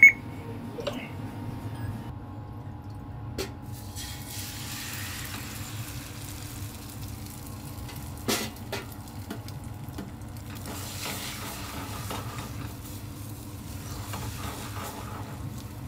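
Egg and sauce sizzling in a small iron pan over a gas flame, over a steady low hum. A sharp clack comes at the very start and another about eight seconds in.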